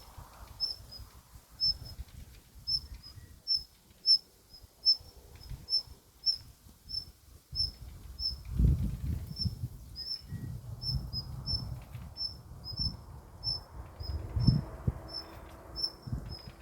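Rustling and soft thumps in the undergrowth as a stray cat grapples with a snake, loudest about 9 seconds in and again near the end. A high, thin chirp repeats steadily about once every 0.7 seconds behind it.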